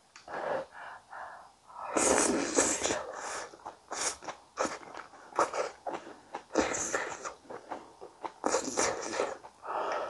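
Close-miked eating sounds from a bite of soft potato and tomato gratin: chewing and small wet mouth clicks, with several breathy rushes of air about two, seven and nine seconds in.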